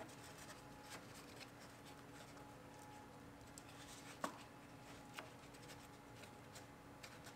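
Near silence: faint room hum with a few soft clicks and rustles of hands pressing a foam strip in under a plastic cowl panel, the clearest click about four seconds in.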